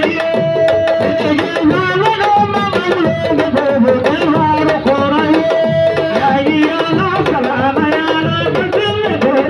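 Fast hand drumming in a steady, dense rhythm, with voices singing a wavering melody over it.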